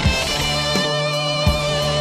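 Background rock music: sustained guitar notes over a steady drum beat, about one hit every three quarters of a second.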